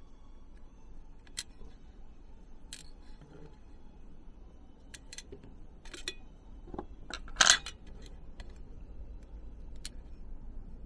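Fine metal tweezers clicking and tapping against a stainless steel tray, scattered light clicks with one louder, briefly ringing clink a little past the middle.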